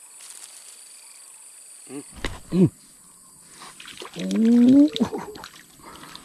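A man's voice giving two short wordless exclamations, the first falling in pitch, the second louder and rising, over a steady high insect drone.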